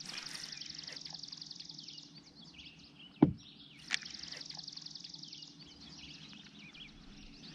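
A songbird singing a fast, even high-pitched trill about two seconds long, twice, with a single sharp knock about three seconds in.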